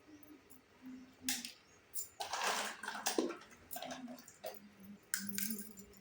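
Small plastic and metal pieces of a miniature toy kitchen set being handled: light clicks and clinks, with a longer rustling noise about two seconds in.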